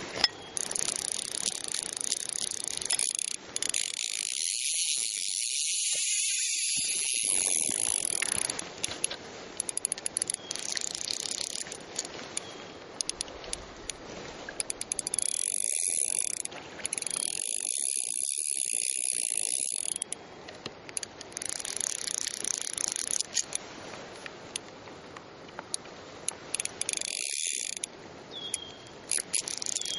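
Fly reel's click-and-pawl drag ratcheting in runs of a few seconds at a time, stopping and starting several times.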